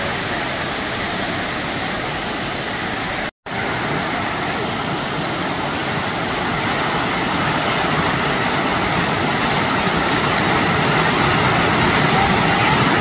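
Water rushing and splashing down the stepped limestone cascades of Dunn's River Falls, a steady hiss that grows a little louder toward the end. The sound drops out for an instant about three seconds in.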